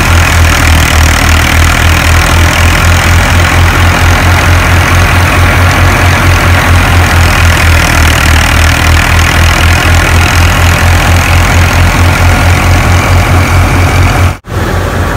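New Holland Al-Ghazi 65 hp tractor's diesel engine running steadily under load, powering a wheat thresher through its PTO shaft, with a low, even engine beat under the thresher's noise. The sound drops out for an instant near the end.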